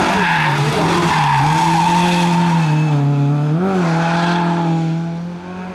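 Ford Escort Mk2 rally car's engine running hard through a corner. Its pitch dips about a second in, then jumps in a quick rev blip, with the tyres sliding on the asphalt. The sound fades near the end as the car pulls away.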